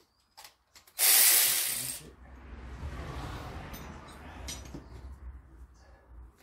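A loud hissing blast of pressurized spray starts about a second in and lasts about a second, then a fainter hiss tails off over the next few seconds above a low rumble.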